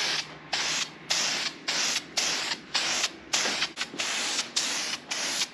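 An aerosol spray-paint can spraying black paint onto exhaust headers in short hissing bursts, about two a second.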